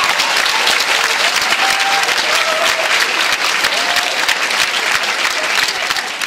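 Audience applauding, dense clapping with a few brief calls from the crowd, dying down a little near the end.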